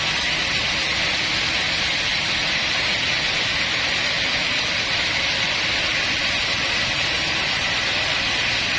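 Sawmill machinery running steadily, an even hiss with a low rumble beneath and no breaks.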